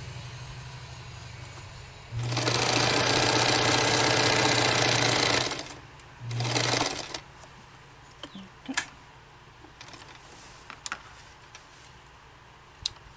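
Bernina 830 Record sewing machine stitching a hem in canvas. It runs slowly at first, then at full speed for about three seconds, then gives one short burst under a second long. After that there are only a few light clicks from handling.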